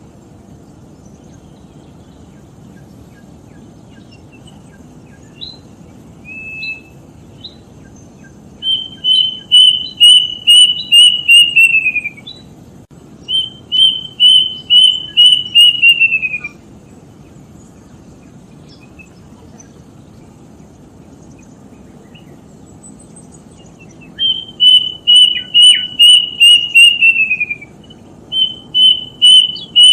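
A bird calling in bouts of about seven quick, clear whistled notes, each bout lasting about three seconds and dropping in pitch at its end. There are four bouts, with a few short single notes before the first.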